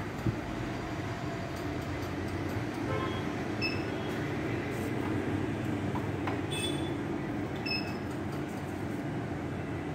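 Steady low rumble of room and street background noise, with three short high-pitched electronic beeps from the autorefractometer as its readings are taken: about three and a half, six and a half, and near eight seconds in.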